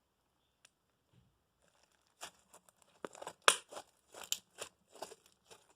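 Stiff glue slime being pulled and kneaded by hand, giving a quick irregular run of crackles and tearing pops that starts about two seconds in and is loudest in the middle.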